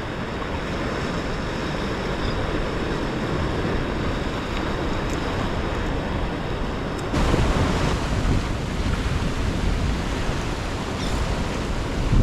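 Ocean surf washing steadily, with wind buffeting the microphone; it gets louder about seven seconds in.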